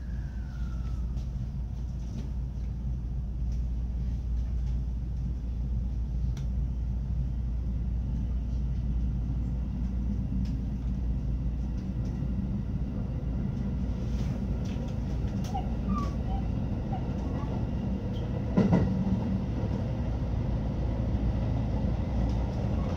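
Electric multiple-unit train running, heard from the cab end: a steady low rumble that slowly grows louder as the train pulls away from the station and gathers speed. Scattered faint clicks of the wheels over the track come through it, with one heavier knock about three-quarters of the way through.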